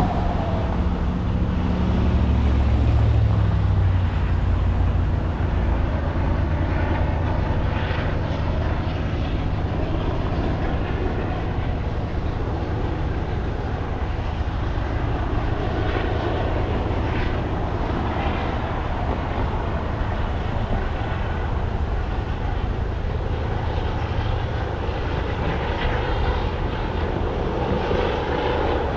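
Steady low engine drone with a continuous haze of noise over it, unbroken throughout.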